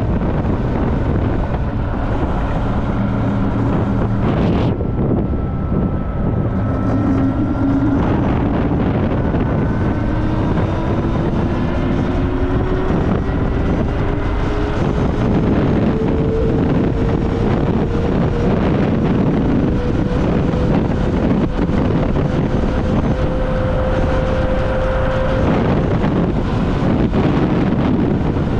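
Wind rushing over the microphone of a riding Super Soco TC Max electric motorcycle, a steady low buffeting. Through it runs a thin whine from the electric motor that climbs slowly in pitch through the middle of the stretch as the bike gathers speed, then levels off near the end.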